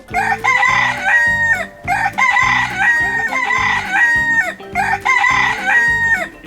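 Rooster crowing three times, about two seconds apart, each crow rising, holding a drawn-out note and then falling away.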